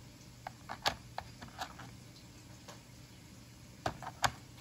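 Light clicks and taps of eggs against a clear plastic egg carton as they are lifted out and set down: a scatter of clicks about a second in and a couple of sharper ones near the end.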